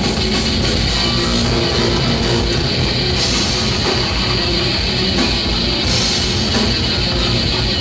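A live heavy metal band playing loud, with distorted electric guitar, bass and a driving drum kit in a steady, dense wall of sound.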